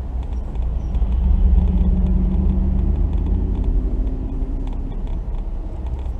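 Car driving: a steady low rumble of road and engine noise, with a faint engine hum that swells about a second in and fades near the end.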